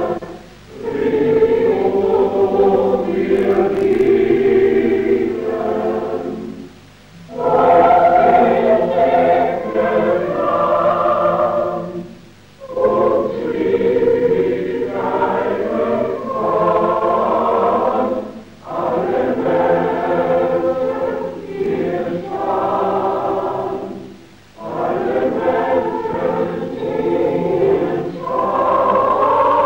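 A choir singing in phrases of about six seconds, each followed by a brief pause for breath.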